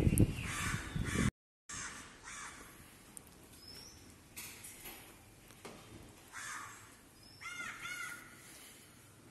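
Crows cawing repeatedly, a string of separate caws with two clear ones close together near the end. A brief loud knock or handling noise right at the start.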